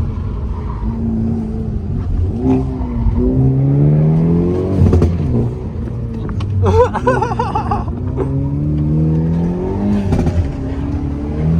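Car engine accelerating hard, its pitch climbing, dropping back and climbing again through gear changes. A brief wavering high-pitched sound comes about seven seconds in.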